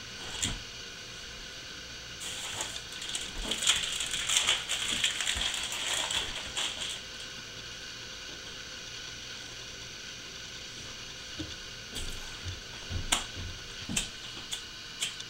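Crinkling and rustling of a package of sliced lunch meat being handled for several seconds, then a few sharp clicks near the end from a cigarette lighter being struck.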